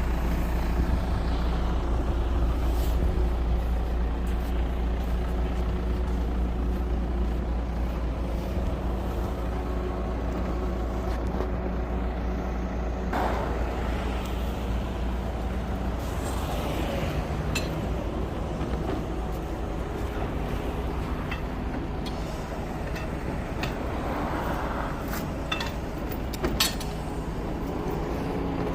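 Truck-mounted crane's engine running steadily with a low rumble, with scattered clicks and knocks.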